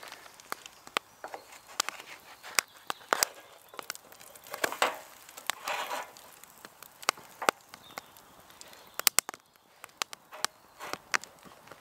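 Wood campfire crackling with frequent sharp pops beneath a pancake frying in a small pan. Around five to six seconds in, two short scraping, sizzling bursts come as the pancake is turned with a wooden spatula.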